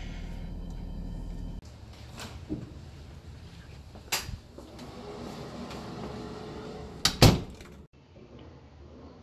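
A steady low hum inside a car for the first second and a half cuts off abruptly. Short clicks and knocks of a door being handled by its knob follow, and the loudest is a close double knock near the end.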